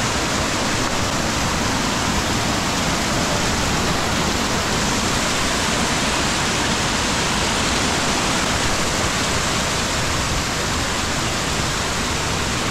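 Mountain stream cascading over boulders: a steady rush of white water, close by.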